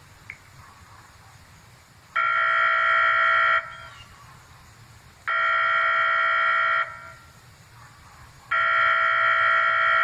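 Homemade electronic siren sounding a steady buzzing tone in three blasts of about a second and a half each, roughly three seconds apart, with no rise or fall in pitch.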